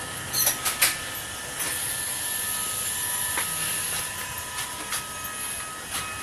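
Passenger train running on the track, heard from on board: a steady rolling noise with a high hiss and a faint whine, broken by sharp clicks and knocks near the start and again in the second half.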